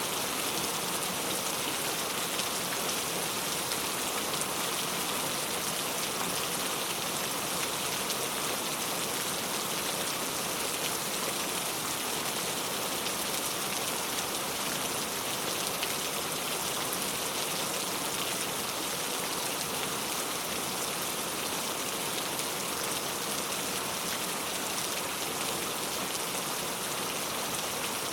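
Heavy rain falling steadily, a dense even patter with no let-up or thunder.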